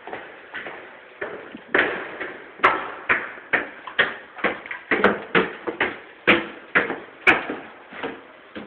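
Footsteps walking at a steady pace, about two steps a second, getting louder about two seconds in.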